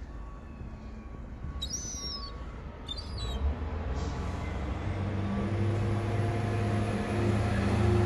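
Gulls calling twice, short yelping cries about two and three seconds in. From about halfway a lorry's engine hum builds and grows steadily louder.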